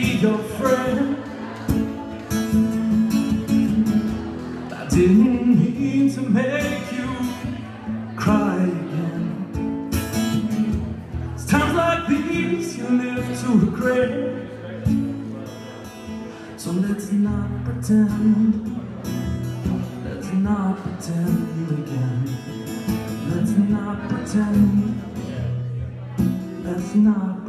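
A man singing while playing an acoustic guitar.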